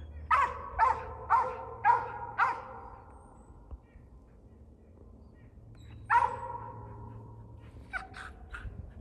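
Mountain cur barking treed at a den tree: five quick barks at the start, a longer drawn-out bark about six seconds in, then a few short faint barks near the end. The bark is the tree dog's signal that it has a squirrel holed up in the tree.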